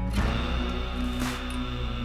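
Background music: sustained low tones with a soft hit about once a second.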